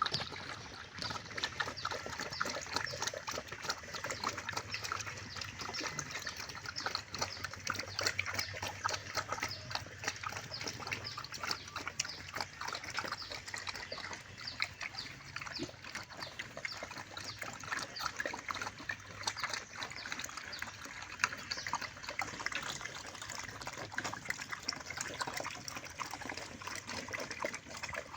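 Wild pigs eating: continuous wet chewing and crunching, a dense run of small irregular clicks.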